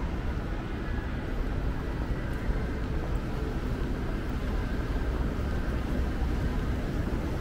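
Busy city street ambience: a steady low rumble of traffic.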